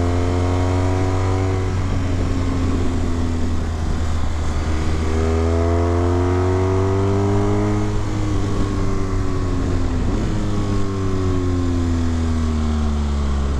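Motorcycle engine heard from the rider's seat while riding, the revs rising for a few seconds about a third of the way in and then dropping away as the bike slows into a bend.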